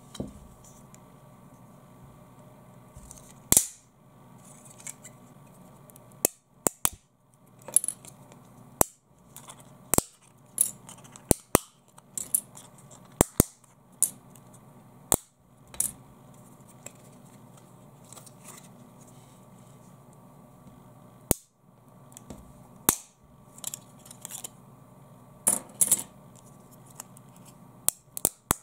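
Plastic ruler being snapped apart by hand: a string of sharp cracks at irregular intervals as small pieces break off one after another.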